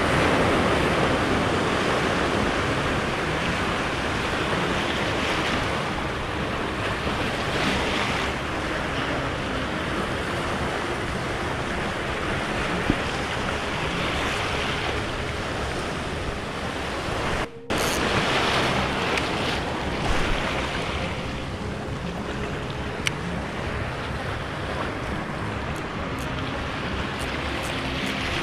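Small waves breaking and washing through shallow surf, with wind on the microphone. The noise swells and eases every few seconds as each wave comes in.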